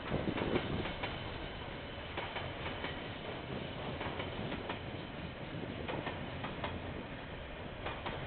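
Container freight wagons rolling past along the track: a steady rolling noise with scattered wheel clicks, a little louder in the first half second.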